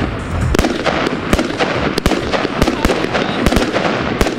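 Bonfireworks Colorfull Thunder Tail firework going off: a steady hissing crackle of shots rising, broken by about a dozen sharp, irregular bangs as they burst.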